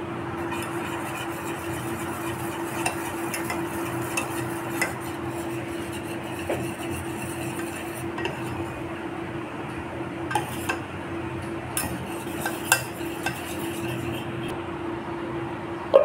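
Wire whisk beating khaman dhokla batter in a stainless steel bowl: a steady swishing with scattered light clicks of the wires against the bowl, over a steady low hum. A sharp clack at the very end.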